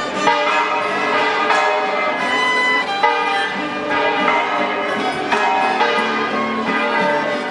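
Rondalla of acoustic guitars, bandurrias and lutes, with a violin and an accordion, playing a tune together while marching.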